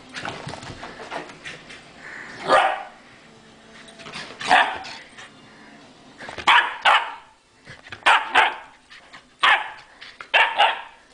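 Husky puppy barking: about nine barks, some in quick pairs, with pauses of a second or two between them.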